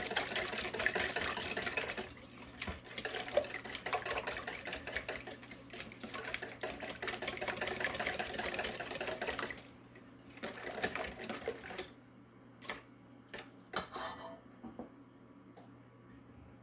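Yorkshire pudding batter of eggs, milk and flour being whisked in a bowl: fast, steady clicking and scraping that stops about ten seconds in, then a short burst of whisking and a few separate taps.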